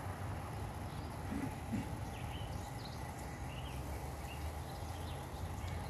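Outdoor ambience: a steady low rumble with a few short bird chirps in the middle.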